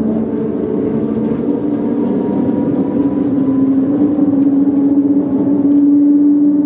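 Bombardier Flexity Outlook tram running along its track, heard from inside the tram: a steady electric hum over a low rumble, its strongest tone stepping up slightly in pitch about four seconds in.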